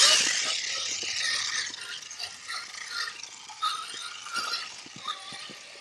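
Axial SCX6 RC crawler driving over rock: a whirring drivetrain that is loudest at the start and fades over the first couple of seconds, followed by scattered clicks and clinks of the tyres and stones on rock.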